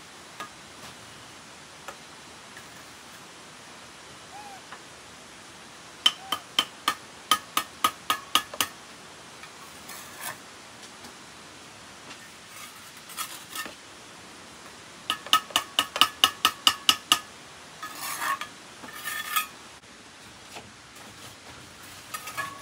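Quick ringing metal taps, as of a tool striking brick during bricklaying, in two runs of about ten strikes each, four to five a second, about six and fifteen seconds in, followed by a short rough scraping.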